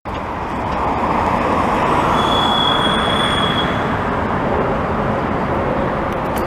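Jet airliner on landing approach, its engines making a steady roar that builds over the first two seconds and then holds, with a thin high whine heard briefly in the middle.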